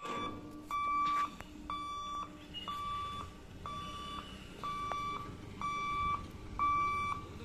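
Railway level-crossing warning beeper sounding as the boom barrier lifts: a high electronic beep about once a second, each about half a second long.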